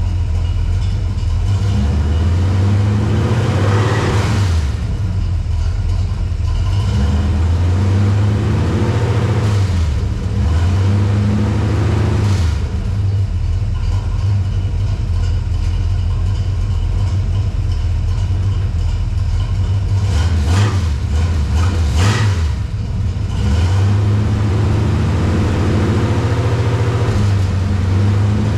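Dodge D100 truck's engine idling, revved up and let back down several times, as it is run to track down a noise.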